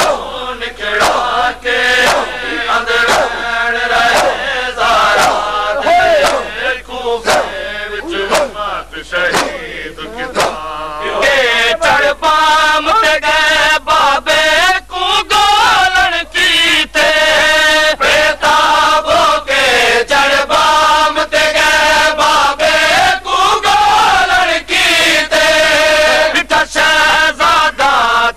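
A group of men chanting a noha, a Saraiki-Punjabi mourning lament, in unison, with regular chest-beating slaps (matam) keeping the beat about once or twice a second. About eleven seconds in the sound turns brighter and clearer.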